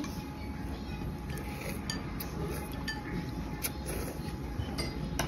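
Steady low background rumble with a few scattered faint clinks of dishes and chopsticks on tableware.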